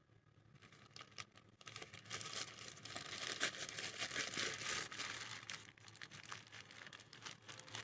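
A plastic poly bag crinkling as it is handled and filled with paste, a dense crackle that builds after a second or so and eases off in the last couple of seconds.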